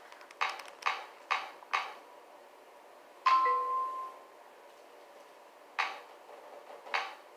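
Crunching bites and chews of packed cornstarch: four crisp crunches about half a second apart, then two more near the end. About three seconds in, a single bell-like ding with a clear pitch, the loudest sound, fades out.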